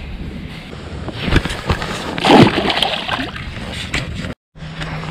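A chain pickerel dropped back into the lake with a splash, a little past two seconds in. Before it come a few small knocks of the fish and long-nose pliers being handled over the water.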